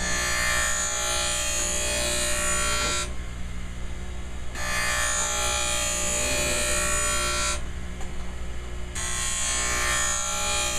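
Skate sharpener's flat-bottom-V grinding wheel running with a steady hum, and a hissing grind each time the Easton NanoGlide runner is drawn along the wheel: three passes of about three seconds each, with short breaks between them.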